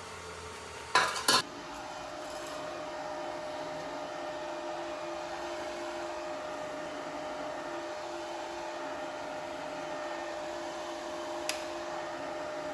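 Two sharp metallic clicks about a second in, then a steady mechanical hum holding one constant tone.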